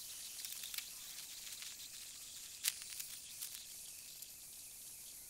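Handheld gas torch flame hissing steadily as it is passed over black plastic to melt back the frays and reseal the surface, with a single light click about two and a half seconds in.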